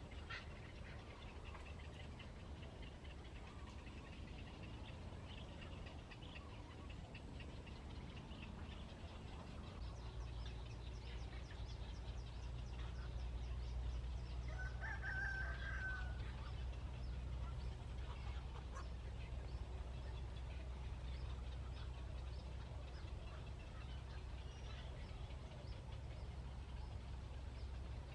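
Faint outdoor bird calls over a low steady rumble, with one short, clearer call about halfway through. The rumble grows louder about a third of the way in.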